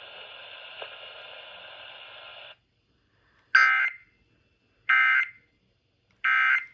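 Faint hiss of the broadcast channel that cuts off about two and a half seconds in. Then three short, loud bursts of warbling two-tone digital data, about 1.3 seconds apart: the Emergency Alert System end-of-message code that closes the test.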